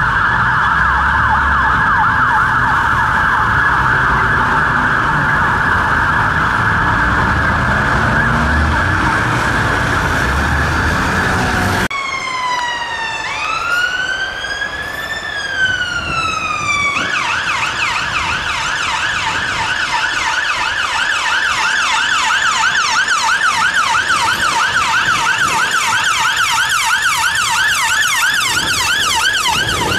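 Ambulance sirens. First a London Ambulance Service Mercedes-Benz Sprinter's siren on a rapid warble over road noise. About 12 seconds in, the sound cuts to a West Midlands Ambulance Service Fiat Ducato's siren, which wails in slow rises and falls, then switches at about 17 seconds to a fast yelp of about three sweeps a second.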